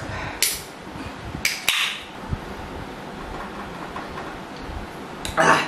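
Aluminium drink cans being handled and drunk from, with light knocks and a few short hissing bursts, the loudest near the end.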